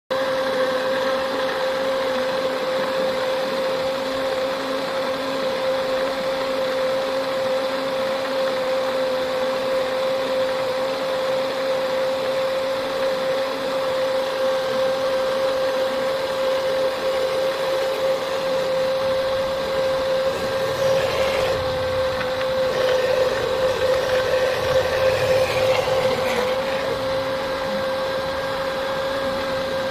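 Electric kitchen blender running at a steady speed with a high motor whine, grinding temulawak, turmeric, ginger and kencur rhizomes for the jamu. It starts abruptly, and the sound wavers and grows a little louder about two-thirds of the way through.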